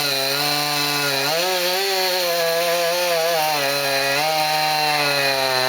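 Chainsaw engine running at high speed without a break, its pitch wavering up and down as it cuts.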